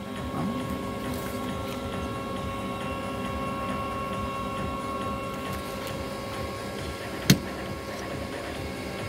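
A steady mechanical hum of several fixed tones runs throughout. About seven seconds in, a single sharp plastic click, the loudest sound, as the rear wiper blade of a Citroen C3 is unclipped from its wiper arm.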